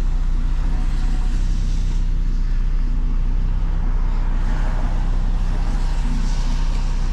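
Car engine running steadily at an even pitch, heard from inside the cabin, with a steady hiss of road noise.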